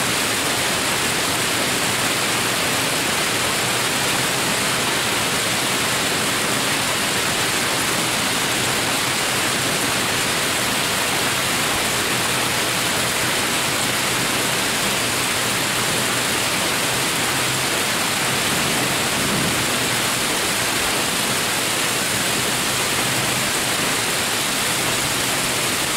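Torrential rain pouring down on pavement and parked vehicles, a loud, dense, unbroken hiss.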